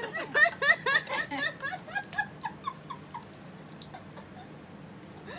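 A woman laughing hard in quick repeated bursts of laughter, dying away about three seconds in.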